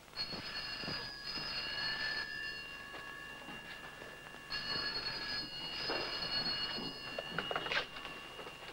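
Black rotary-dial desk telephone ringing in two long bursts with a short pause between. Near the end there is a clatter as the receiver is lifted.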